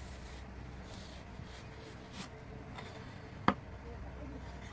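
A large kitchen knife drawing through raw tuna on a wooden cutting board, faint, with one sharp tap of the blade on the board about three and a half seconds in, over a low steady hum.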